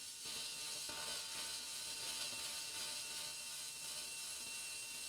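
Small electric screwdriver running steadily with a gear-train whir, slowly driving a long M3x30 machine screw into a 3D-printed plastic hinge.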